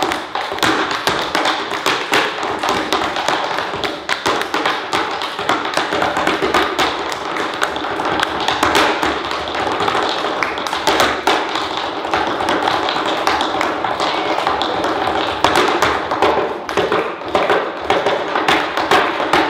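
Tap shoes striking a small wooden tap board in a fast, continuous tap-dance rhythm, with hands clapping along.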